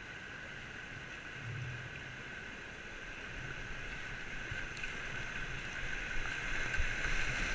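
Rushing river water around a whitewater kayak, a steady hiss that grows louder as the boat nears a rapid, with a few faint paddle strokes.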